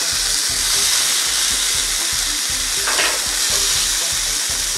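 Beef steak sizzling steadily on the hot grill plate of an electric panini grill press.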